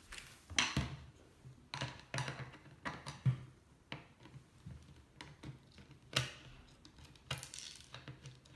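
Irregular clicks, knocks and short scrapes of hands handling a carbon-fiber camera slider's metal carriage and fittings, with the sharpest knock about three seconds in.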